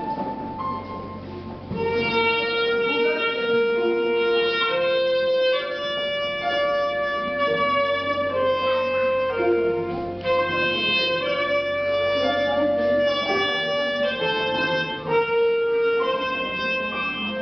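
Clarinet playing a slow melody of long held notes over piano accompaniment. The clarinet comes in about two seconds in.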